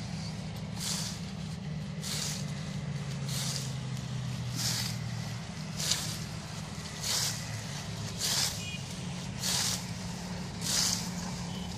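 A long-handled daatar blade is swung through berseem clover fodder, each stroke a sharp swish. About nine strokes come at an even pace, roughly one every second and a quarter, over a steady low drone.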